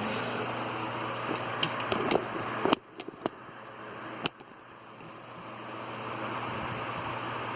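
Westinghouse 12PA2 table fan's airflow and motor running steadily, then a series of clicks from its speed switch being turned. The fan's noise drops away at a loud click and builds back up over a couple of seconds as the motor settles to a new speed, medium.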